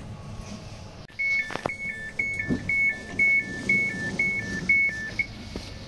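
Electric train's door warning signal: a two-tone high-low beep repeating about twice a second for about four seconds, starting about a second in, with a knock near its start.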